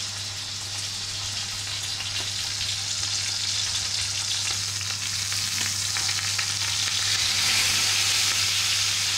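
A rolled, string-tied rabbit saddle searing in hot oil in a frying pan: a steady sizzle that grows a little louder over the last few seconds.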